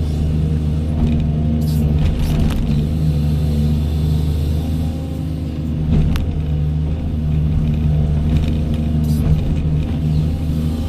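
Doosan 210W wheeled excavator's diesel engine running steadily at working speed, with a few short knocks from the machine.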